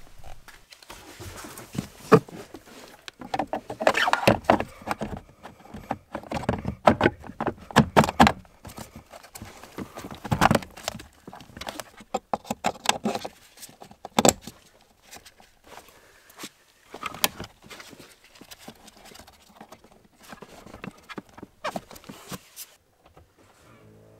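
Hard plastic knocks, clicks and scrapes as a replacement radial blower motor is handled and pushed into its housing under the dashboard of a Mercedes-Benz W212, in irregular bursts that stop about a second and a half before the end.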